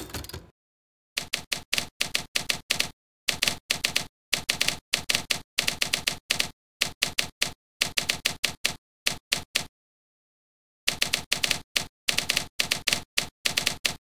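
Typewriter key clacks played by a typewriter-themed word processor, one clack per keystroke. They come in quick runs of several strikes, one run per typed word, with fully silent gaps between runs and a pause of about a second near the two-thirds mark.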